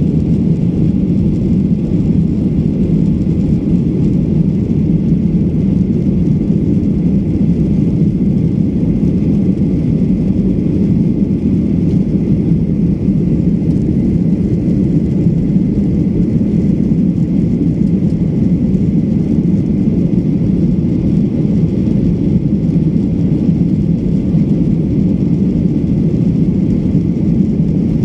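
Steady low rumble of a jet airliner's cabin in flight, the engines and airflow heard from inside at a window seat.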